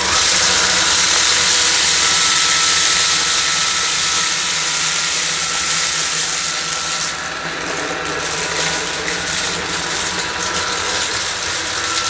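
Bosch Unlimited BCS111GB cordless stick vacuum running on its normal, low-power mode: a steady whirring rush of suction with a motor whine, as its floor brush is pushed over a tiled floor. In the second half, rattling clicks of dry rice, lentils and oats being sucked up join in.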